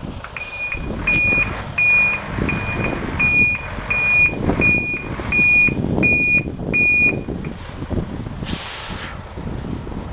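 Scania 94D 310 truck reversing, its nine-litre five-cylinder diesel running under a reversing alarm that beeps about ten times, roughly one and a half beeps a second, then stops. A short hiss of air from the brakes follows near the end.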